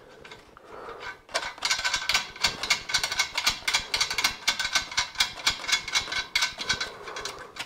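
A nut being run onto the M10 bolt that holds a drill-sharpening jig to a belt grinder's base: a quick, even series of metallic clicks, several a second, starting about a second and a half in.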